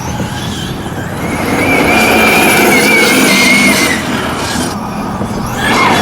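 Rovan 12S electric RC buggy running at speed: a high-pitched whine from its brushless motor and drivetrain over tyre and rolling noise. The whine holds steady from about a second in and fades out just before the four-second mark.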